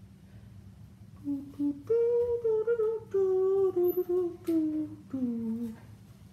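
A woman humming a short tune, starting a little over a second in: a few long held notes that rise and then step down, lasting about four seconds. A low steady background hum runs underneath.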